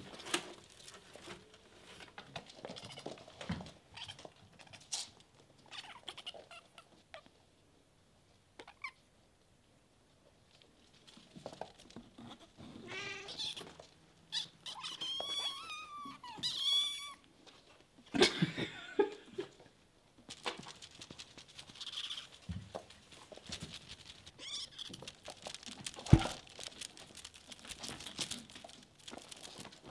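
Bengal kittens meowing and chirping, a run of high, arching meows in the middle, among scrabbling, tapping and knocks as they pounce on a feather wand toy. Two sharp thumps stand out as the loudest sounds, one a little past the middle and one near the end.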